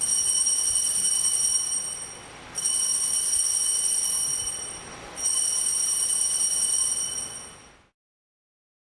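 Altar bells rung at the elevation of the chalice during the consecration: three long rings of high, steady bell tones, each lasting about two and a half seconds.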